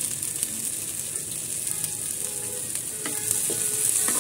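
Chopped onion and green beans sizzling in oil in a frying pan, with a metal spoon clicking and scraping against the pan as they are stirred. The sizzle gets louder near the end.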